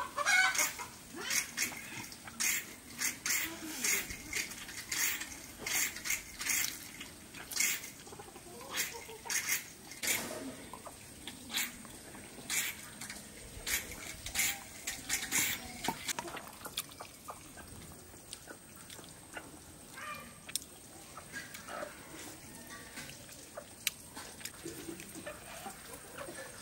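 Wet eating sounds made with the hands and mouth: rice squished and kneaded with the fingers, with smacking chewing. They come as rapid, irregular clicks for the first half and grow sparser later.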